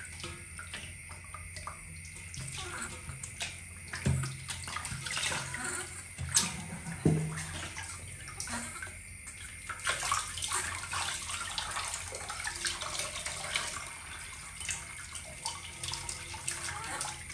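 Water sloshing and splashing in a metal washbasin while a baby monkey is bathed, water scooped and poured over it from a plastic dipper, with a few sharp knocks near the middle.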